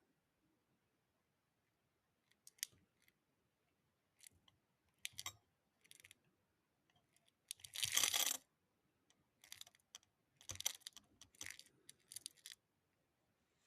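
Handling noises from airgun pellets and their container: scattered small clicks, taps and rattles, with a louder scraping rustle lasting about a second around the middle.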